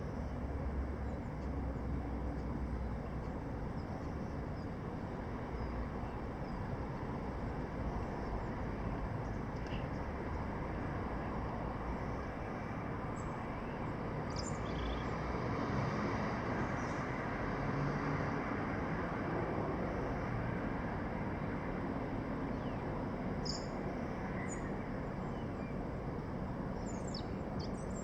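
Steady low city background noise, a constant traffic-like rumble and hiss, with a few brief high bird chirps scattered through it.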